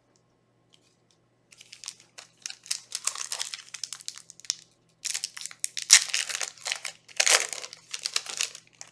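Foil trading-card booster pack wrapper being handled and torn open: bursts of crinkling and tearing that start after about a second and a half of quiet and run in bunches, loudest near the end.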